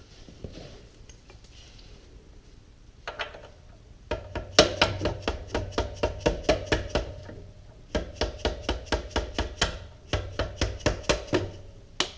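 Hammer blows tapping a long metal bar or bolt through the frame of a 1974 BMW R90S: three runs of quick strikes, about four a second, each with a short metallic ring. Before them, a few seconds of quiet handling noise.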